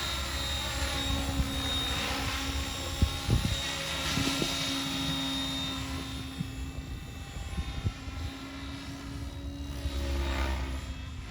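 Oxy 5 HF electric radio-controlled helicopter in flight, its motor and rotors whining steadily at a governed head speed, the tone sweeping slightly as it moves about.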